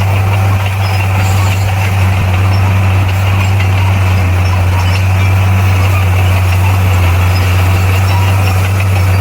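Heavy earthmoving machine's diesel engine running at a steady speed, a loud, deep, even hum with no change in pitch.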